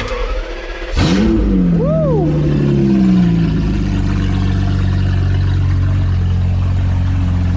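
A decatted BMW E38 750i V12 engine cranking on the starter, catching about a second in, revving briefly, then settling into a loud, steady idle. It is running with no auxiliary belt fitted.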